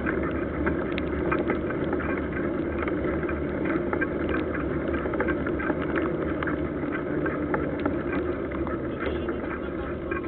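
Mountain bike rolling fast on a wet asphalt road: steady tyre and wind rumble with a constant patter of small clicks and rattles.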